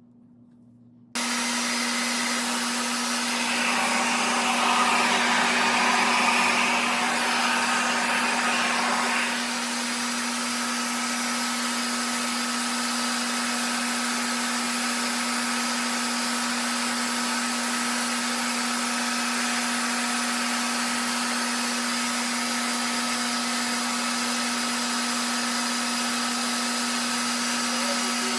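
A RevAir reverse-air blow dryer, which pulls the hair through its wand by suction, switches on about a second in and runs steadily with a constant hum. It is louder and brighter for about six seconds soon after starting, then settles to an even level.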